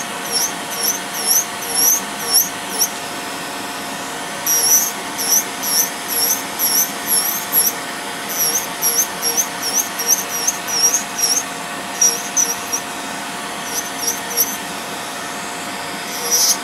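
Electric nail drill running with a steady whine as its grinding bit files down a toenail thickened by fungal infection. Over it come runs of short, high squeaks, about three a second, broken by pauses of a second or so.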